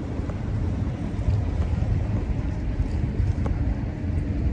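Wind buffeting the microphone: a low, uneven rumble that swells and dips, growing a little stronger about a second in.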